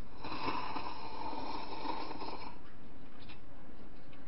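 A person slurping a drink from a small cup, one long drawn-in slurp lasting about two and a half seconds, followed by a few faint clicks.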